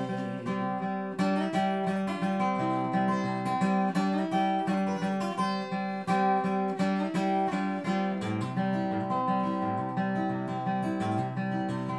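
Jumbo acoustic guitar with a capo, strummed and picked alone in a steady rhythm, with no voice.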